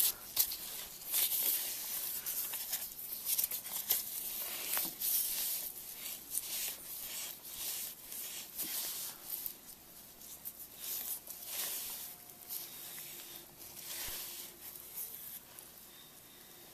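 Strap-type oil filter wrench and ratchet turning a motorcycle oil filter tight, giving a run of irregular rasping, rubbing strokes that grow fainter in the second half.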